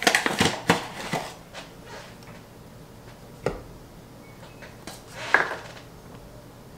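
Paper flour bag rustling and shaking as flour is tipped into a stoneware crock. This is followed by a single sharp knock about three and a half seconds in and a brief rustle of the bag a couple of seconds later.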